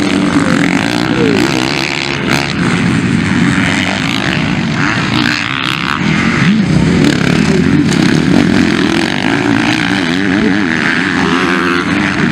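Several motocross bikes racing, their engines revving up and down as they work through the turns and jumps. The engines overlap, with pitches that keep rising and falling as riders get on and off the throttle.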